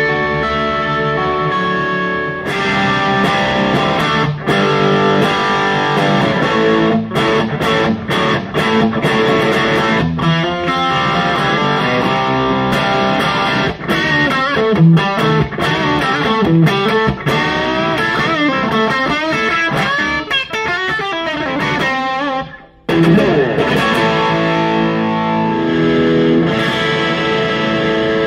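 Electric guitar, a Telecaster-style single-coil guitar played through the Bad Cat Siamese Drive overdrive pedal into a Bad Cat combo amp, with picked riffs and chords in a medium-gain crunch. The playing breaks off briefly about three-quarters of the way in and picks up again at the pedal's heavy gain setting.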